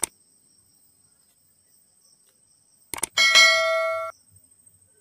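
Sound effect of a YouTube subscribe-and-bell animation. There is a mouse click at the start and another about three seconds in, then a notification-bell chime that rings for about a second and fades.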